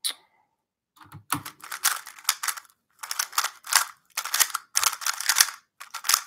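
A plastic 3x3 speed cube being turned very fast during a speedsolve: a single click at the start, then after about a second's pause, rapid bursts of clattering turn clicks broken by short pauses.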